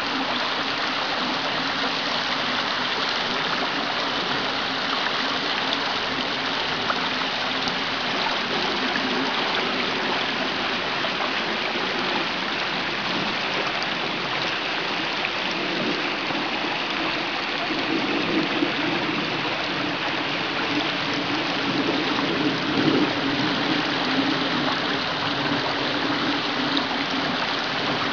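Creek water flowing: a steady rush of running water, a little louder in the last third.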